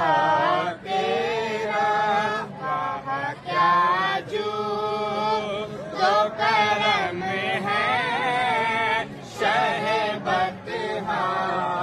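A boy singing devotional verses solo in a high voice, with sliding, ornamented notes in long phrases and short breaths between them.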